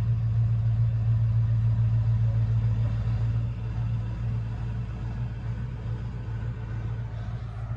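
A large engine's deep, steady rumble with a low hum, loudest at first and slowly fading as it moves away.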